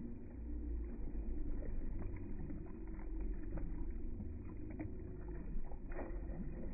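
Light water splashing and sloshing from children kicking in a swimming pool, over a steady low rumble of wind on the microphone, with a few small splashes standing out.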